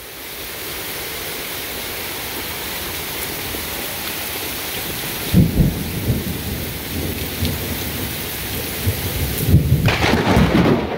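Heavy rain pouring steadily, with thunder rumbling in from about halfway. A very close lightning strike brings the loudest thunder near the end.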